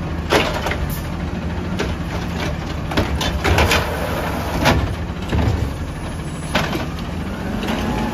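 Peterbilt 320 automated side-loader garbage truck running its engine while the lift arm dumps a trash cart into the hopper and sets it back down, with several sharp knocks and bangs of the cart and arm along the way.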